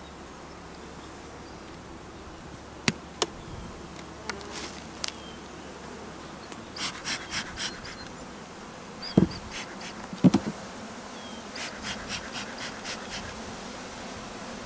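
Honeybees buzzing steadily around an opened nuc box. A bee smoker puffs in quick runs, about four puffs a second, around 7 s and again around 12 s, with two sharp clicks near 3 s and two loud thumps near 9 and 10 s.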